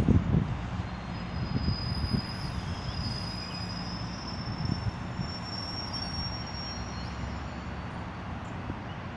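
Commuter train rolling away along the track with a steady rumble, and a thin high squeal from the wheels on the rails that wavers a little in pitch through most of the sound.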